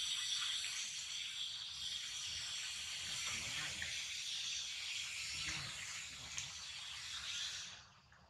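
Insect chorus in the forest: a steady, high, buzzing hiss that cuts off suddenly near the end.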